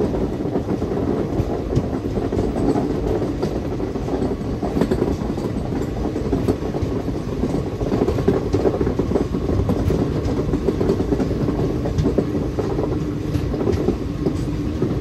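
ICF passenger coaches running along the track: a steady rumble with the clickety-clack of wheels over rail joints.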